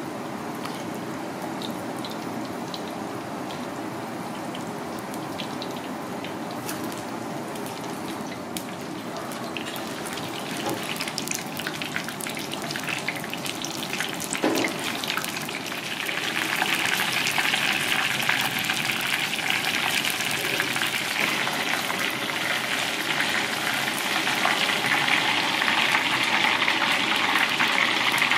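Battered fish pieces deep-frying in a pan of hot oil: a steady sizzle with scattered crackles and pops that grows louder and hissier about halfway through.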